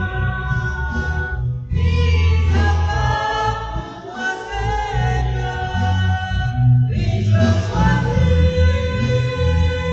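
Music: a choir singing held notes in phrases over a low, steady accompaniment, with short breaks between phrases about two and seven seconds in.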